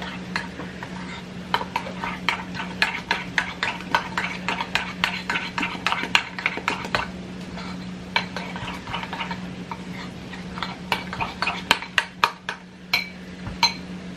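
A spoon stirring thick grits in a pot, knocking and scraping against the side about four times a second, with a short pause about seven seconds in. The grits have thickened and need more water. A steady low hum runs underneath.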